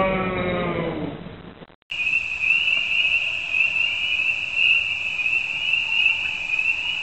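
A night chorus of trilling insects or frogs: a steady, pulsing high trill that starts about two seconds in, after a brief silence. Before it, a wavering, voice-like creature sound fades out.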